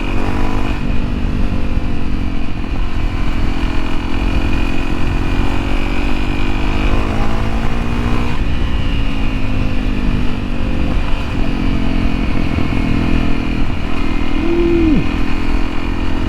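2013 Honda CRF250L's single-cylinder four-stroke engine running while riding, its pitch climbing slowly and then dropping about halfway through, over a steady low wind rumble on the microphone.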